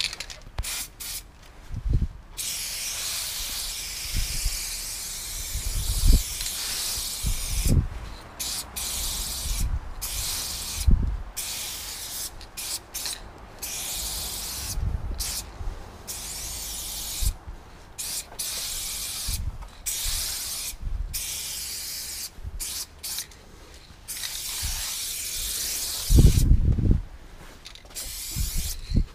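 Aerosol spray paint can spraying in long hisses, broken by many brief pauses between strokes. Occasional low thumps come between them, the loudest near the end.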